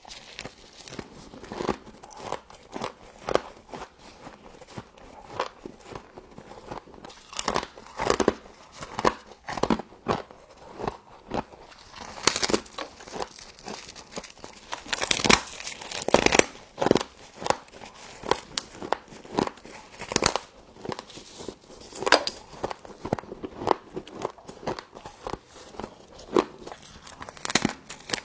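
Frost being bitten and chewed close to the microphone: irregular crisp crunches and crackles, a few a second, with a louder cluster about halfway through.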